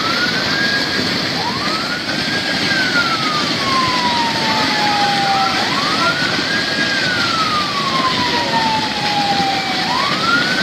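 Muddy flash-flood torrent rushing loudly and steadily, with a siren wailing over it: each wail rises quickly in pitch, then falls slowly, repeating about every four seconds.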